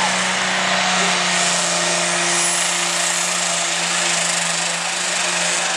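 Light pro stock pulling tractor's turbocharged diesel engine running flat out at a steady pitch as it drags a weight-transfer sled, with a faint high whistle rising about two seconds in.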